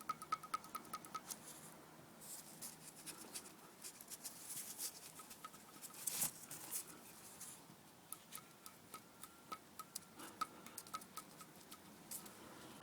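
Runs of light clicks from a Suzuki DL650 V-Strom engine, some with a brief ringing note. The owner suspects a loose cam chain, though a new front tensioner has made no difference.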